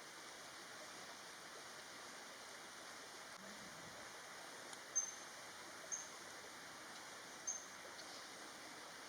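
Three brief, high-pitched bird chirps about five, six and seven and a half seconds in, the first the loudest, over a steady faint hiss of forest ambience.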